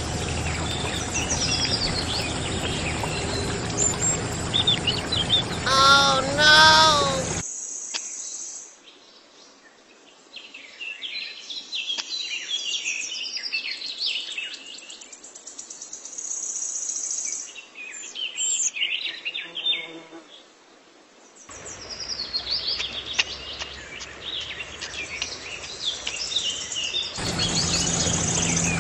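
Small birds chirping repeatedly over the steady splash of water pouring from a miniature pump's outlet pipe. The water noise drops out for several seconds in the middle, leaving only the chirps, then returns.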